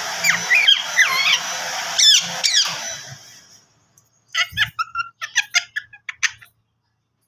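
Indian ringneck parakeet giving a few sharp, gliding squeaks over a steady hiss that fades out. About four seconds in comes a quick run of short, choppy chattering notes as it tries to talk.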